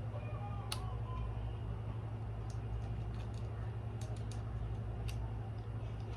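Small sharp clicks and taps from handling a camera while pushing a micro SD card into its slot, the loudest under a second in, over a steady low hum.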